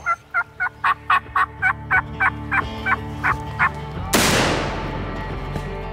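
A long run of evenly spaced turkey yelps, about four a second, over quiet background music. About four seconds in, a sudden loud burst of noise breaks in and dies away over about a second.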